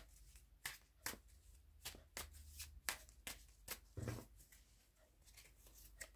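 Tarot deck being shuffled by hand: a faint run of sharp, irregular card snaps and flicks, about two or three a second.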